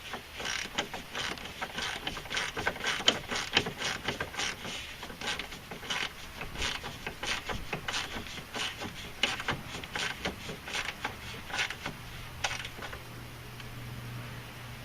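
Hand ratchet wrench clicking in quick, irregular runs as a socket turns a bolt. The clicking stops about twelve seconds in, and a low steady hum carries on to the end.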